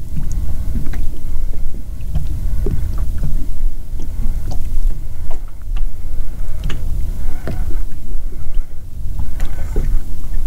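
Lake water lapping against a small fishing boat's hull as a strong, uneven low rumble, with scattered sharp knocks and clicks throughout.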